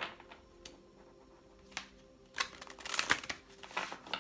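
A deck of oracle cards shuffled by hand: a few separate card taps in the first two seconds, then a busier run of shuffling clicks and rustle from about two and a half seconds in.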